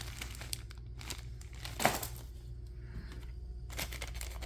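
Plastic packaging of fireworks crinkling and rustling as it is handled, with a sharper knock about two seconds in.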